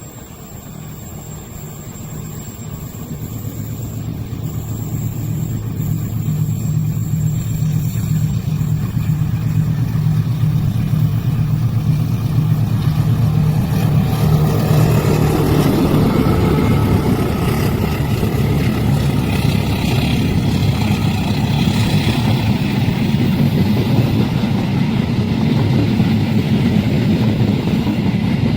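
Diesel train approaching a level crossing, its engine hum growing steadily louder for about fifteen seconds, then the loud rolling noise of the train passing close by.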